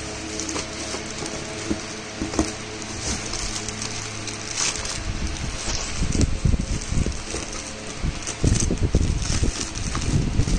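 Plastic bag wrapping crinkling and cardboard rustling as a packed mixer-grinder jar is handled and lifted out of its box, with heavy low handling thumps from about halfway through.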